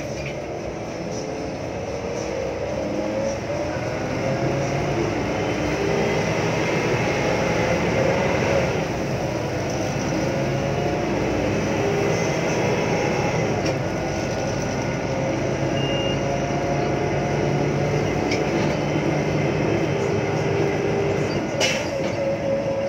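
Daewoo BH115H city bus under way, heard from inside the cabin: the engine and its loud Voith automatic transmission whine, rising in pitch over the first eight seconds or so as the bus picks up speed, then holding steady. A short click comes about a second before the end.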